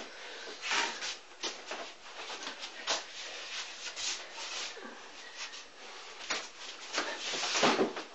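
Rapid brushing and slapping of hands and forearms against skin and shirt sleeves as two people trade strikes and blocks in close-range sticky-hands sparring, with a louder burst near the end.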